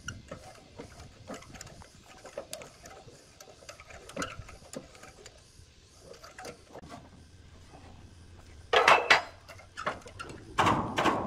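Scattered light clinks and knocks of objects being handled, with louder clattering about nine seconds in and again near the end.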